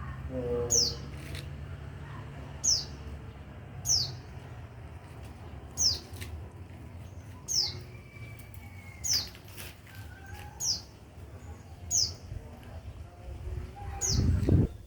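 A pleci (white-eye) repeating a short, high, downward-sliding call note about every one and a half seconds, about nine times, over a steady low hum. Near the end a louder, lower sound swells briefly.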